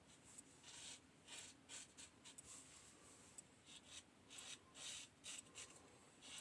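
Vintage 1895 Star lather-catcher safety razor with a single-edge Gem blade scraping through lather and beard stubble: a series of short, faint scratchy strokes, irregularly spaced, one or two a second.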